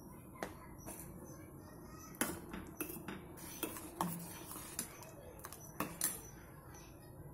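Steel ladle stirring a thick curry in a stainless steel pot, clinking and scraping against the pot's sides and bottom in irregular clusters of sharp clinks.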